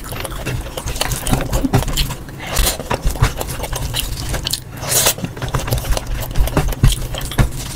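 Close-miked eating sounds sped up to double speed: a hand squishing and scraping rice and curry across a metal tray, with chewing and wet mouth clicks. Longer wet, noisy bursts come about two and a half and five seconds in.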